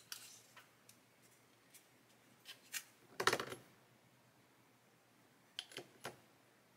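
Soft scattered clicks and clinks of handling a plastic model kit part held in clothes-peg clamps and a glass liquid-cement bottle, with a louder cluster of knocks just past three seconds in and a few taps near the end as the bottle's cap is set back on.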